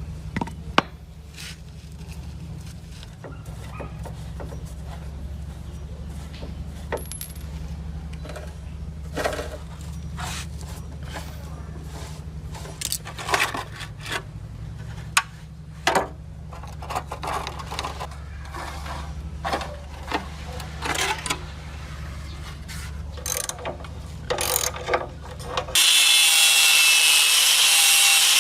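Scattered light clicks and clinks of small metal parts and hand tools being handled over a steady low hum. About 26 seconds in, a loud, steady abrasive rasping starts abruptly.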